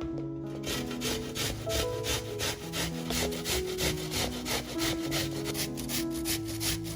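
Rhythmic rasping strokes of food being rubbed across a hand grater, about four to five strokes a second, starting just under a second in, over background music.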